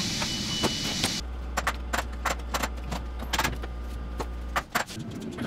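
Workshop clatter: a run of sharp metallic clicks and clinks, with a steady low hum that starts about a second in and cuts off abruptly near the end.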